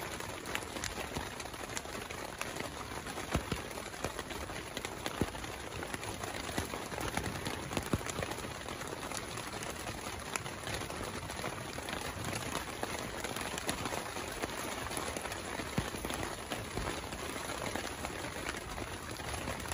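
Heavy rain falling on a tent and its rain tarp, heard from inside: a steady hiss of rain with many small drop ticks.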